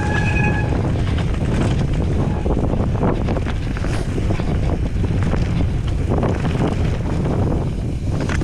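Wind rushing over the microphone during a fast mountain-bike descent, with the bike's steady clatter of small knocks and rattles over rough trail.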